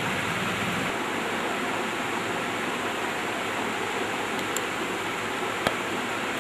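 Steady rushing noise with one sharp click near the end.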